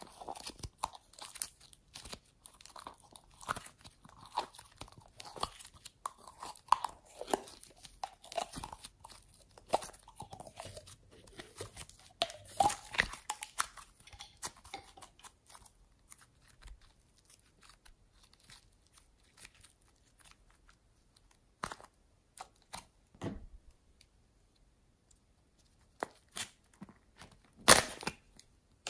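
Slime and soft clay being squeezed and pressed by hand, close to the microphone: a dense run of small sticky crackles and pops for about the first half, then mostly quiet with a few sharp clicks, the loudest near the end.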